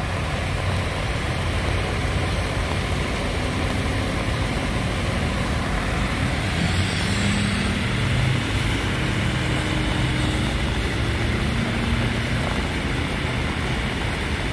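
Vehicle engines idling with a steady low rumble over a constant hiss of wet-road noise. A faint engine hum comes and goes through the middle.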